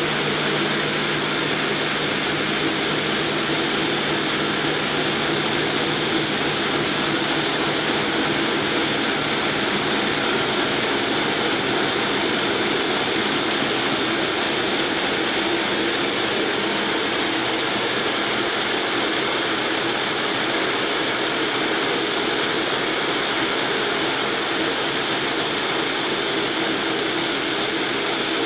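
Multi-blade granite block cutter running, its large diamond-segmented circular saw blades cutting down into a granite block: a loud, steady machine noise with no breaks.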